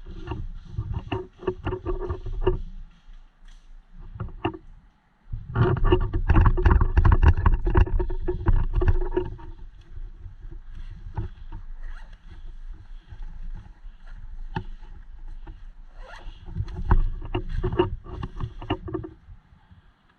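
Footsteps squelching and splashing through mud and puddles, in three bursts of a few seconds each with quieter pauses between.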